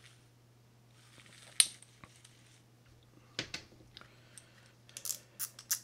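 Scattered small metallic clicks and clinks of a Shimano Citica baitcasting reel and tools being handled on the bench, with a quick run of clicks near the end.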